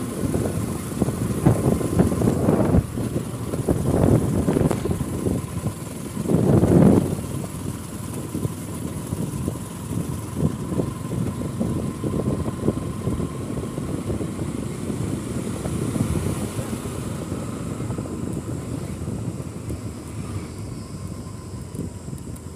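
Bajaj Pulsar NS200's single-cylinder engine running under way, heard from the bike itself along with road noise. A few louder swells come in the first seven seconds, then it settles and slowly grows quieter.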